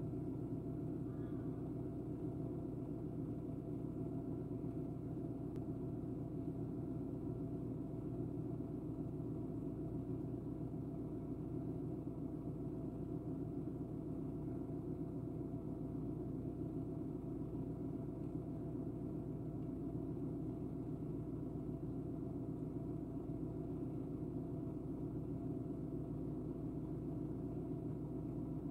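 Steady low hum of an idling car, heard from inside the cabin.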